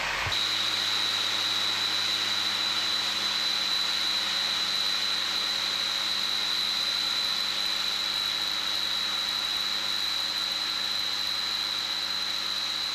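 Combine harvester's large diesel engine running at a steady speed, a constant hum with a steady high-pitched whine over it that sets in just after the start.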